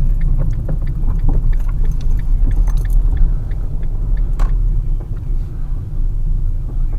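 Steady low rumble of a car in motion, heard from inside the vehicle, with scattered small clicks and knocks over it.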